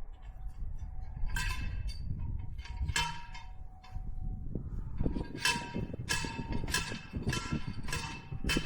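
Steel fence post being hammered into the ground, each blow a ringing metal-on-metal clang. A few separate strikes come first, then a steady run of about two clangs a second from about halfway through.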